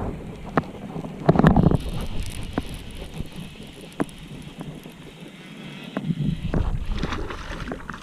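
Sharp knocks and clicks on a kayak, with a louder burst of noise about a second and a half in, and wind buffeting the microphone.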